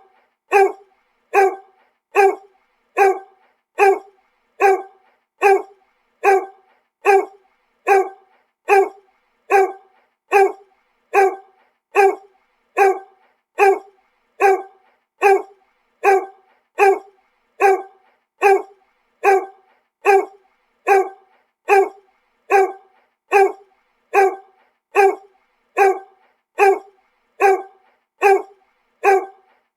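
A dog barking, one short bark repeated at an even pace, about three barks every two seconds, each bark alike.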